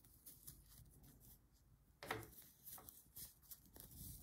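Near silence with faint soft ticks and rubbing as metal knitting needles work yarn, and one slightly louder tap about two seconds in.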